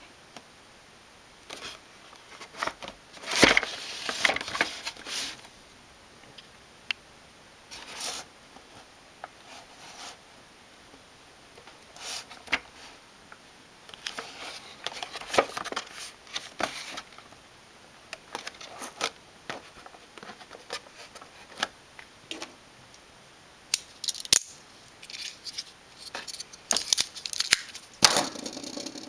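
Handling noises from unboxing: scattered clicks, rustling and scraping of packaging, coming in irregular bursts.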